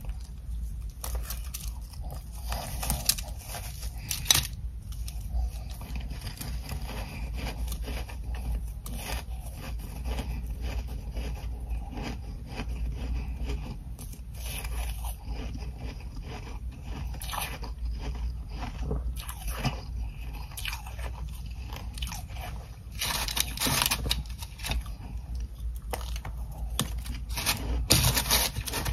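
Close-miked biting and chewing of ice chunks coated in frost from a humidifier: many irregular crisp crunches, with some scraping. The crunching grows louder and denser in the last few seconds.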